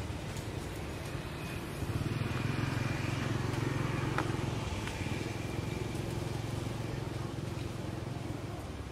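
Steady low hum of a motor vehicle, which grows louder about two seconds in and eases off again a few seconds later as it passes.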